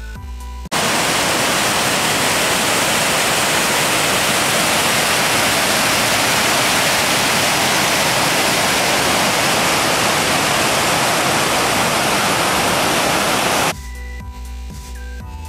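Loud, steady rush of fast-flowing water that cuts in about a second in and cuts off abruptly near the end, with electronic music before and after it.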